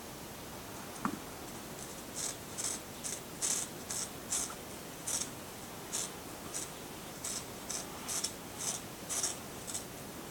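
Cat clawing at a cat scratcher: a run of short, scratchy rasps, roughly two a second, starting about two seconds in.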